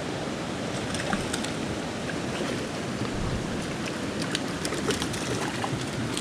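Creek water rushing steadily, with a few faint light clicks over it.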